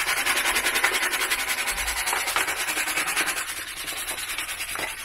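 Small nail brush scrubbing plastic toy parts in soapy water, in quick back-and-forth strokes that ease off after about three and a half seconds.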